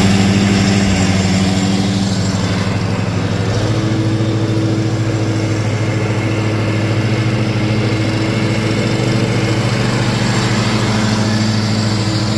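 John Deere riding lawn mower's engine running steadily as it mows the yard, cutting grass and dry leaves. Its note shifts slightly about three and a half seconds in.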